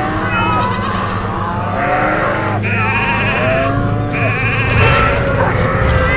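A large flock of sheep bleating, many calls overlapping continuously, over a steady low hum.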